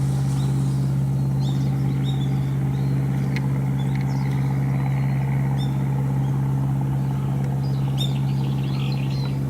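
A steady low engine hum that does not change, with small birds chirping now and then over it.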